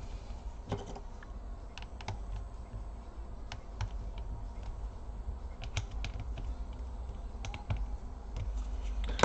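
Scattered light clicks and taps of small parts and tools against an open laptop's insides, about ten spread unevenly over several seconds, over a steady low hum.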